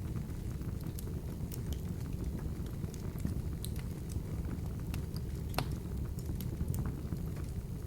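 Open wood fire in a fireplace burning steadily with a low rumble, crackling and popping irregularly, with one sharper pop about five and a half seconds in.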